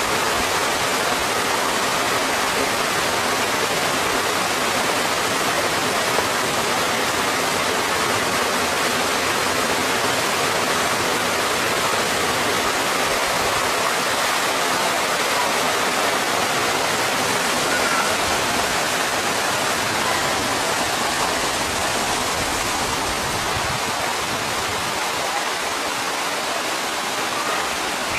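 Steady rush of water from a waterfall and mountain stream, an even, unbroken noise throughout.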